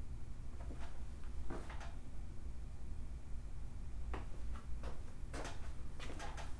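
A few light clicks and knocks from handling a compressed-air hose and its chuck, spaced out and clustering near the end, over a low steady hum.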